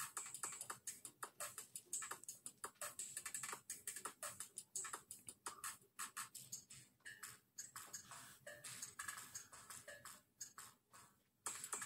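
Faint, rapid light clicking and clinking of a utensil against the pot and bowl as hard-boiled eggs are fished out of the water, with a brief pause near the end.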